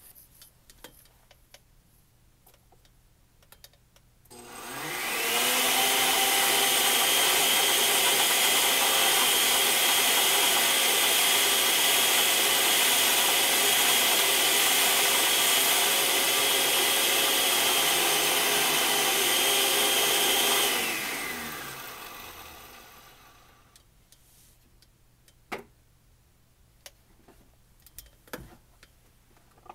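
Oster blender motor running at full speed, grinding clumps of scrap scenery foam into fine ground-foam powder. It spins up about four seconds in, runs loud and steady for about sixteen seconds, then winds down over a few seconds, followed by a few faint clicks.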